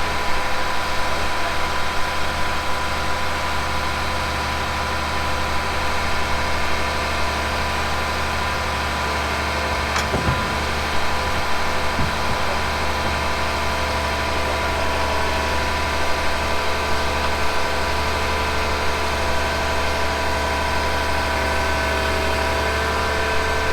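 Excavator's diesel engine running steadily at idle, with one sharp click about ten seconds in.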